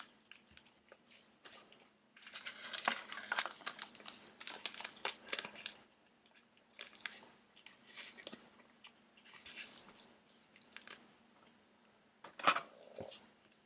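Trading cards and their pack wrappers being handled: crinkling and rustling in uneven bursts, with one sharper, louder crackle near the end.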